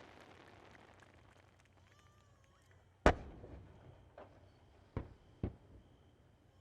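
Fireworks shells bursting: one loud boom about three seconds in with a rolling echo after it, then three smaller bangs over the next two and a half seconds.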